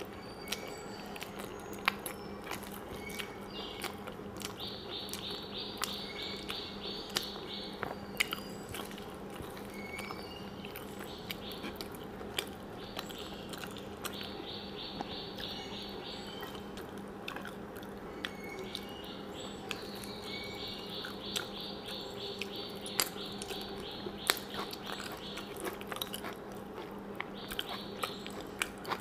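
Close-up wet chewing and mouth smacks as handfuls of rice and vegetable curry are eaten by hand, with many sharp clicks over a steady low hum. A high, rapidly pulsed chirping comes and goes in the background several times.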